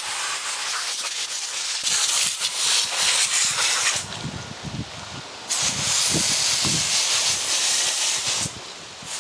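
Water jet spraying onto a car wheel and brake drum, rinsing off iron-dissolving wheel cleaner. The hiss of the spray eases off about four seconds in, comes back hard a second and a half later, and drops away near the end.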